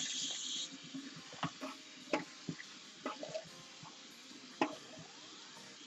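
Tap water running onto wet synthetic braids in a stainless steel sink, shutting off within the first second. Then the soaked braids are squeezed and swished in the sink water, with scattered small splashes and drips.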